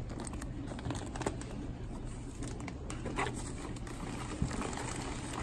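Plastic shipping bags crinkling and rustling as they are handled in a foam-lined box, with scattered light clicks and taps over a low steady hum.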